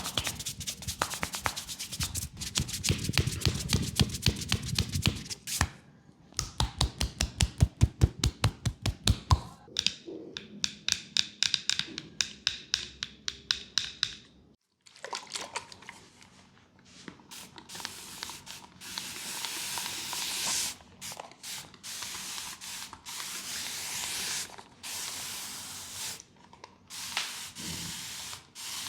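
Hand-massage sounds on skin: a dense patter of quick taps, then rapid even slaps about six a second, then a lighter, quicker rhythm. After a brief pause come a series of hissing bursts.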